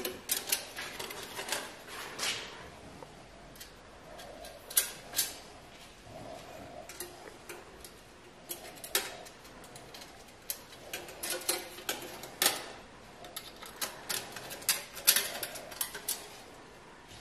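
Irregular small metal clicks and taps as a handle, its screws and a hand tool are handled and fitted to a pizza oven's body, with a few quick runs of ticks.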